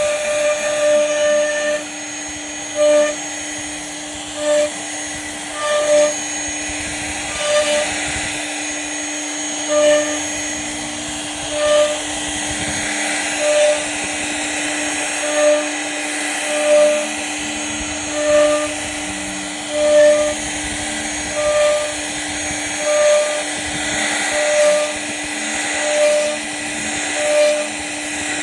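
Electric woodworking power tool running steadily with a hum, while a short tone pulses evenly about every second and a half.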